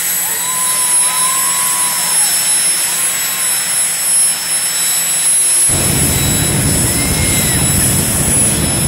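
Jet dragster's turbine engine whining at the starting line, then its afterburner lights about six seconds in with a sudden, loud low rumble.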